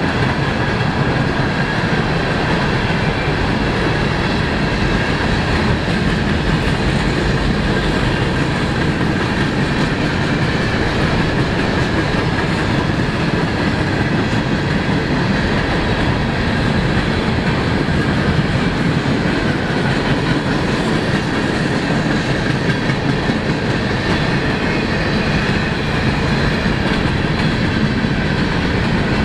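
Train cars rolling steadily past at close range on the CSX main line, a continuous clatter and rumble of wheels on rail with no break.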